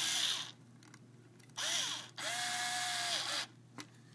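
Small electric screwdriver or drill motor running in three short bursts, its pitch rising as it spins up, holding, then falling as it stops, as it drives a terminal screw on the switch's contact. A faint click near the end.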